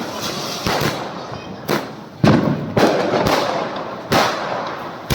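Firecrackers bursting: a string of sharp bangs at irregular intervals, about seven in five seconds, over a continuous crackling background.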